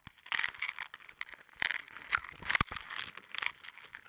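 Irregular scraping, crackling and knocking noises with many sharp clicks, starting suddenly, as gear and slush are disturbed in an ice-fishing hole while a large northern pike is brought up through it.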